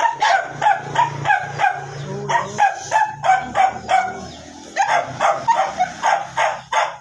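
A dog barking over and over, about three barks a second, easing off briefly a little past the middle and then picking up again.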